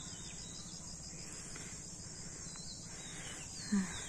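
Insects chirring steadily in a high, rapidly pulsing trill across open wet fields, with a few faint short bird chirps. A brief low sound comes about three and a half seconds in.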